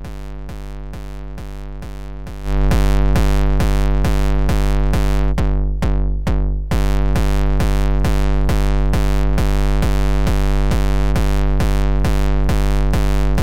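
A looped TR-909 kick drum repeating steadily through FabFilter Volcano 3's distortion, with a resonant bell filter on the Extreme algorithm that makes it hard and distorted. It jumps much louder about two and a half seconds in as the input gain is pushed up, and briefly dips near the middle.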